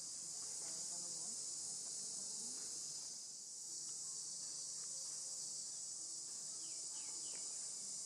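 Steady, high-pitched outdoor insect chorus, unbroken throughout.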